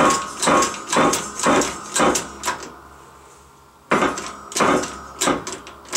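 Bottle jack on a hydraulic shop press being pumped by its handle, a ringing metallic clank with each stroke about twice a second. The strokes pause for about a second midway, then resume, as the wheel hub is pressed into the bearing's inner race.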